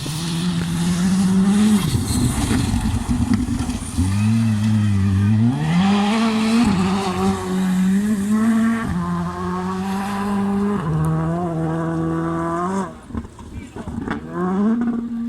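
Rally car engine under hard acceleration, its pitch climbing and dropping back at each quick gear change through several gears. The engine is lifted off about 13 s in, then blipped up once more near the end.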